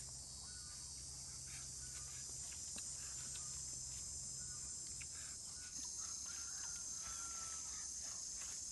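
Steady, shrill chorus of insects, crickets or cicadas, trilling without pause; a second, higher continuous trill joins in a little past the middle.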